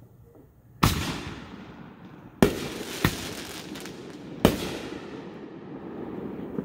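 Aerial fireworks shells bursting: four sharp bangs, the first about a second in and the last about four and a half seconds in, each trailing off in a long echo.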